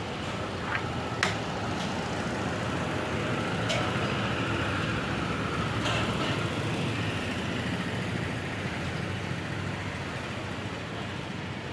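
Steady background rumble of road traffic, with a few short sharp clicks of makruk pieces being set down on the board, mostly in the first half.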